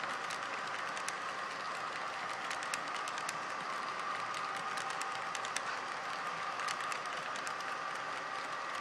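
HO-scale model tank cars rolling past on the track, their wheels clicking irregularly over rail joints, over a steady rolling noise with a constant high hum.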